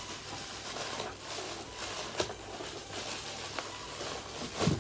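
Cardboard shipping box being handled: rustling and scraping as a boxed cajon is worked loose and pulled out, with a few light knocks and a louder thump near the end.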